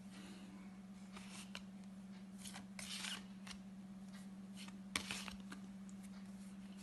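Faint paper-card swishes and rasps as a pack of flashcards is flipped through one card after another, a dozen or so short strokes at uneven intervals, over a steady low electrical hum.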